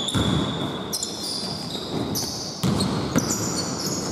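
Basketball being bounced on a hardwood gym floor during play, several separate thuds, with sneakers squeaking on the floor as players run.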